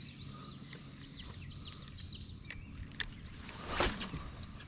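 Small songbirds chirping in quick, rapid runs of notes over a low steady background. About three seconds in there is a sharp click, then a brief whoosh near the end, which is the loudest sound.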